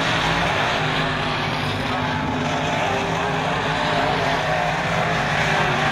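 Dirt-track modified race cars' V8 engines running at speed around a dirt oval: many engines blending into one steady, loud drone.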